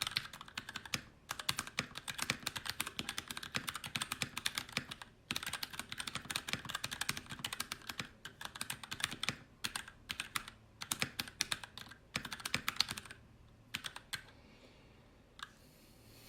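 Fast typing on a mechanical keyboard with PBT keycaps: a dense run of keystroke clacks with short pauses, stopping about three seconds before the end, after which one lone click is heard.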